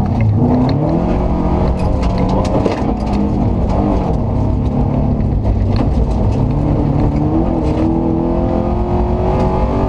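Subaru Impreza 2.5 RS rally car's flat-four engine heard from inside the cabin, revving up and down as it is driven hard on a dirt stage. The pitch climbs about half a second in, falls away around two to four seconds, then rises steadily from about six seconds to the end, with scattered knocks and clatter from the rough road.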